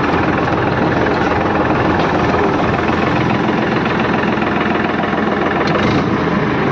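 Farm tractor's diesel engine running steadily under the driver's seat, a fast, even knock of its firing with no change in speed.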